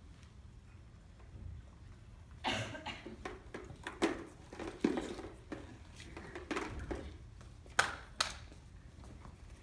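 Scattered knocks and clatter, starting about two and a half seconds in, as a homemade go-kart and props are pushed and handled on a hard floor; the sharpest knock comes near the end.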